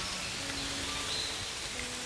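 Steady outdoor ambience with an even hiss like light rain, a few faint high bird calls, and soft held notes of background music.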